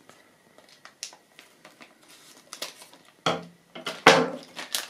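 Faint crinkles and clicks as a foil minifigure blind bag is handled, then a loud rip about four seconds in as the packet is torn open.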